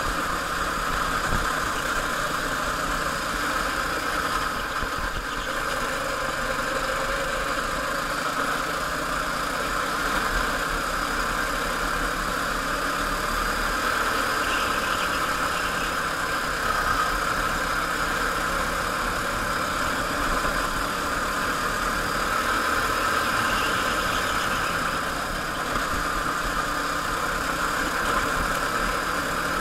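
Go-kart engine running steadily as the kart is driven around the track, heard on board with little change in pitch.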